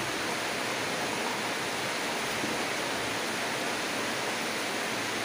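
Steady, even background hiss with no change in level.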